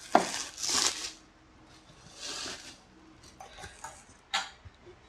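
Handling and opening a parcel of books: a sharp click, two short rustling swishes, then scattered light knocks and clicks as packaging is pulled and moved.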